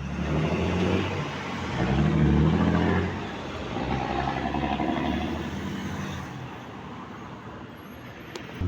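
City street traffic: motor vehicle engines running and passing, one engine loudest about two seconds in, over a steady hum of the road.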